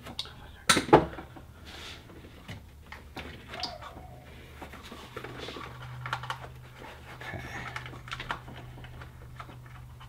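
Small clicks and rustles of hands working wires and crimp connectors, with one loud clatter about a second in, over a steady low hum.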